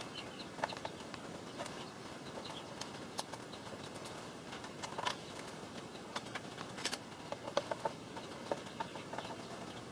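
Scattered light clicks and small metal taps of parts and tools being handled while an old gas-powered saw is put back together, over a faint steady hiss.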